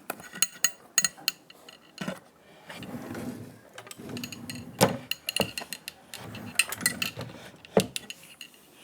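Metal key working in a lock: a run of small metallic clicks and rattles, with a sharp knock about five seconds in and another near the end.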